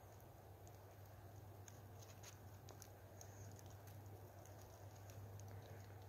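Near silence, with faint scattered clicks of a handful of snow being handled and bitten over a low steady hum.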